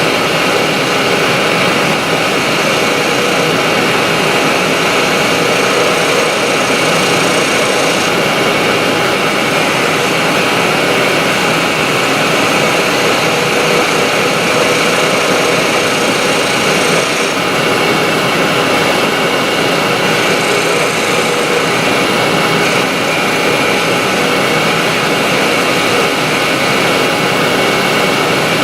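Union Jubilee wood lathe running steadily with a steady motor whine, while a small skew chisel or gouge cuts a spindle and adds a hiss of shaving wood.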